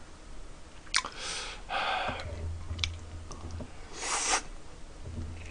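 A metal spoon clicking against a ceramic rice bowl while someone eats, with a couple of sharp clicks, breathy hisses and a strong, sharp breath about four seconds in.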